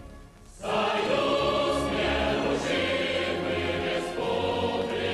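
Music with a choir singing, coming in after a brief lull about half a second in.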